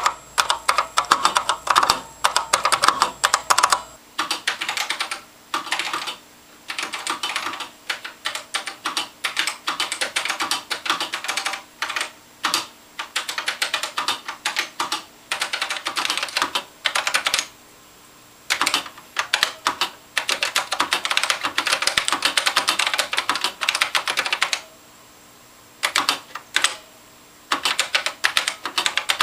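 Kaypro II computer keyboard being typed on: quick runs of key clicks broken by short pauses.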